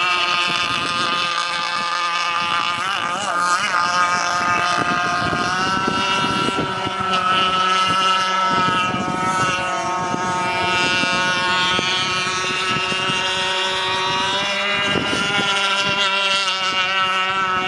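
Gas-powered Joker RC boat's two-stroke engine running at speed across the water, a steady engine note whose pitch wavers a few times and rises slightly about six seconds in.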